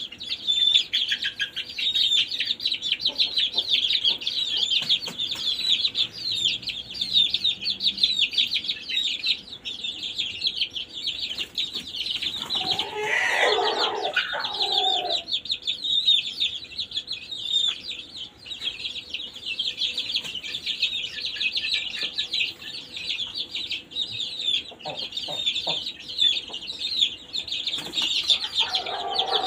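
A flock of young Thai khao chee (white) chickens peeping constantly in rapid, high chirps. A rooster crows once about halfway through, and another crow begins near the end.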